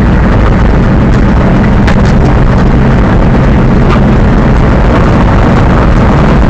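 Monster truck's engine running loud and steady under way, heard from inside the cab, with a few short knocks about two and four seconds in.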